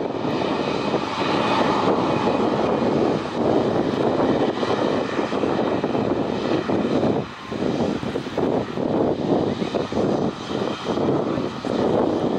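Boeing 777-300ER's twin GE90 turbofan engines running at taxi power as the jet rolls past: a steady jet rush with a faint high whine, dipping and swelling in the second half.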